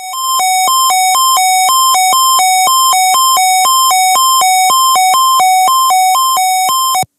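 NOAA Weather Radio warning alarm test: a loud electronic two-tone alarm alternating high and low about twice a second. It cuts off abruptly near the end.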